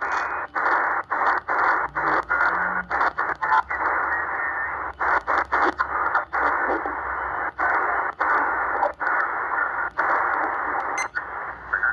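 XHDATA D-808 portable shortwave receiver giving a steady hiss of band noise in its narrow sideband passband, muffled above the low treble. The hiss is broken by many brief dropouts as the receiver is tuned across the 40 m amateur band between stations, with faint garbled signal fragments now and then.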